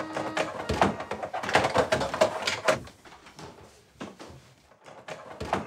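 Rummaging inside a kitchen cabinet under the sink: clattering and knocking of pots, pans and cupboard parts, busy for the first three seconds, then a few quieter knocks, then more clatter near the end.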